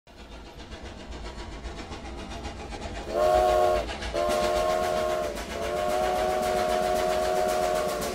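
A train sound effect: the rumble and clatter of a train fades in and grows louder, then a multi-tone train whistle blows three times about three seconds in, the last blast the longest.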